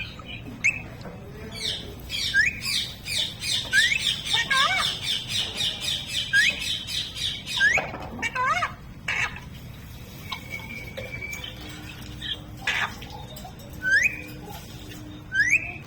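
Pet parrot squawking: repeated short rising calls, with a fast chattering run of high notes lasting several seconds about three seconds in.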